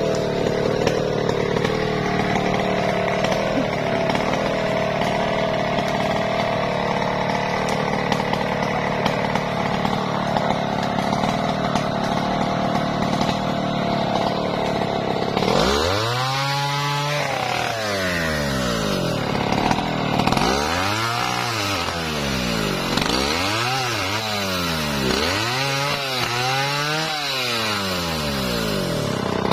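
Stihl MS070 two-stroke chainsaw running steadily, then from about halfway revved up and down about five times as it cuts into a teak log.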